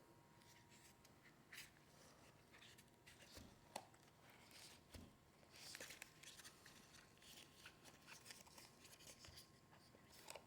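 Faint rustling and scattered light clicks of hands handling a camera and its packaging, against near silence.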